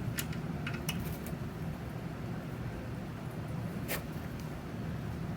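A few light clicks and one sharper tick of hand work on a motorcycle during an oil change, as parts are threaded on and hand-tightened, over a steady low hum.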